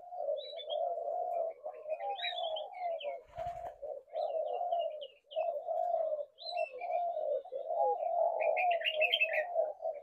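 Several spotted doves cooing at once, their calls overlapping almost without a break, with small birds chirping higher above them, most busily near the end. A brief rustle about three and a half seconds in.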